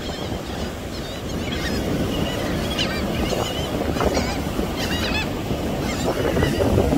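A flock of gulls calling, short squawks scattered throughout, over the steady wash of surf and wind.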